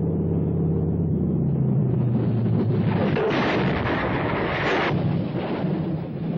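Steady low drone of an aircraft engine. About three seconds in, a loud rush of noise that the tagger hears as a blast overtakes it for about two seconds, then it settles back to a rumble.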